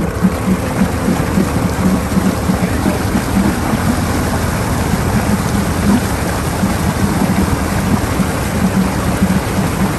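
ATV engine revving hard while its mud tires spin and churn through a deep mud hole, flinging a steady spray of mud and water. The engine's low throb pulses under the splashing.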